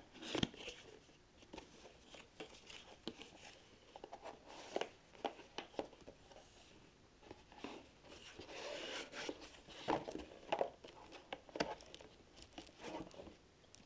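Cardboard packaging being opened and handled: an irregular run of scrapes, rustles and light taps as the box flaps and inner cardboard tray are slid out and pulled apart.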